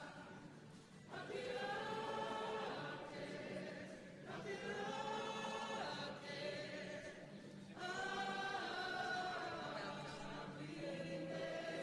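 A choir singing slow, long-held phrases, with a new phrase beginning every three seconds or so.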